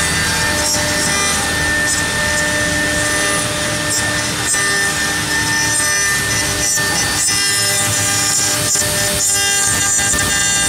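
Heavy-duty W1325VC CNC wood router with a water-cooled spindle carving a relief into a wood panel. A steady spindle whine of several held tones sits over the rasp of the bit cutting the wood.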